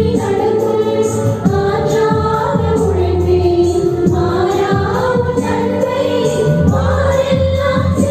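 Church choir singing a Tamil Christian devotional hymn over instrumental accompaniment with sustained bass notes.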